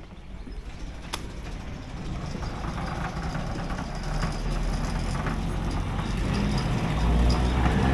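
Low rumble of a heavy vehicle drawing near, growing steadily louder.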